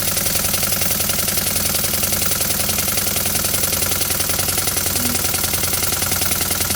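Homemade scrap-metal steam engine running steadily at high speed, with a fast, even knock on every stroke.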